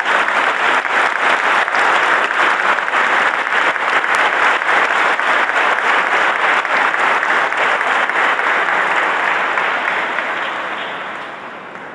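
Church congregation applauding, a dense patter of many hands clapping that dies away over the last few seconds.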